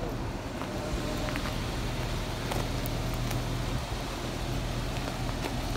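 A vehicle engine idling steadily with a low hum, with a few faint clicks over it.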